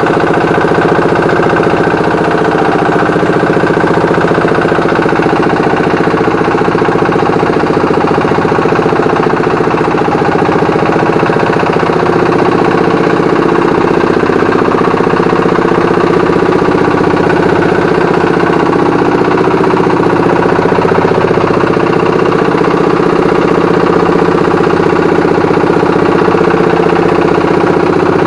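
Boat engine running steadily at an even speed, with no change in pitch or loudness.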